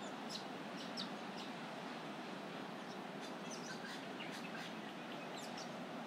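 Wild birds in coastal trees giving many short, high chirps and twitters, busiest a little past the middle, over a steady background rush of distant surf.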